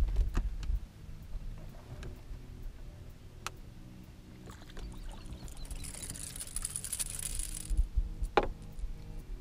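A hooked bass is reeled in to the boat over a low rumble of wind on the microphone and scattered sharp clicks. A hissing splash comes as the fish thrashes at the surface, about six to eight seconds in. It is followed by a single sharp knock as the fish is lifted aboard.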